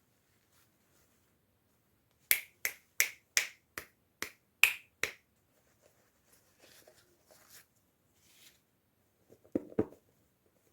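A quick run of eight sharp clicks or snaps, about three a second, then faint rustling and two soft knocks near the end.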